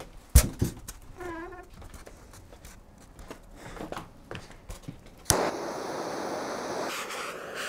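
A few scattered knocks and clicks, then about five seconds in a handheld butane torch lights with a click and hisses steadily.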